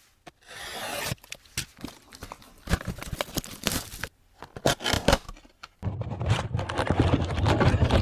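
Plastic shrink wrap being torn and peeled off a trading card box, crinkling and crackling in short bursts and snaps. The loudest, most continuous crinkling comes in the last two seconds.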